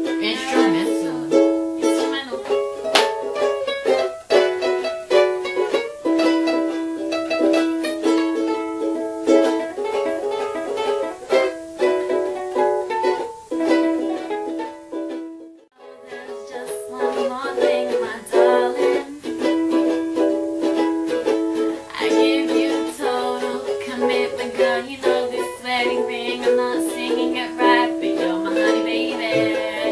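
Ukulele strummed in chords, playing a song. The playing breaks off briefly about halfway and then resumes.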